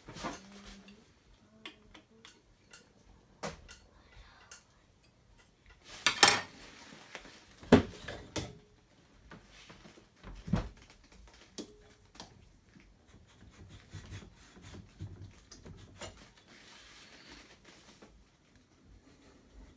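Scattered metallic clinks and knocks, as of metal parts or tools being handled and set down, with no motor running; the loudest knocks come about six, eight and ten and a half seconds in.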